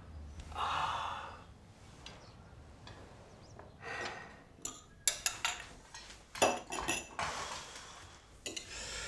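A short breathy sound from a person, then from about five seconds in a run of sharp clinks and clatters of glasses, crockery and cutlery as a dining table is cleared.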